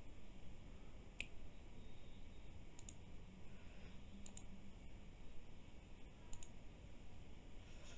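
Faint computer mouse clicks: a single click about a second in, then three quick double clicks spaced about a second and a half apart, over a low room hum.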